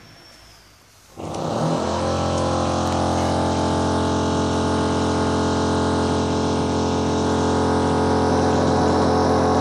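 Power drilling in the background: the drill starts up abruptly about a second in and then runs steadily. It is drilling holes in the home's concrete floor.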